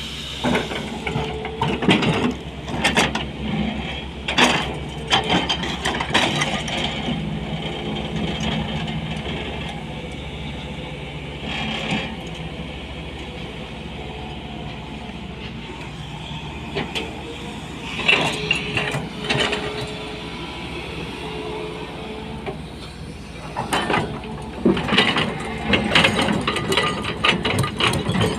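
SANY 220 hydraulic excavator's diesel engine running steadily under load while its steel bucket digs and pries at quarry rock, with clusters of knocks, scrapes and tumbling stone in the first few seconds, about two-thirds of the way through, and near the end.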